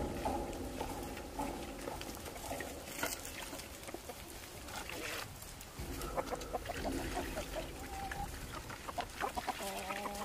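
Chickens clucking in short runs of repeated calls, with scattered light knocks of feed pans being set down among kunekune piglets.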